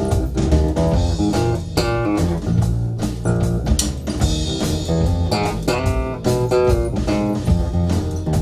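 Electric bass guitar playing a melodic line of plucked notes high on the neck, with drums from an electronic drum kit striking along underneath.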